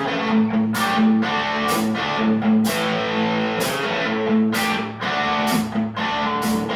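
Live guitar playing the instrumental opening of a song, chords struck in a steady rhythm about once a second over sustained notes.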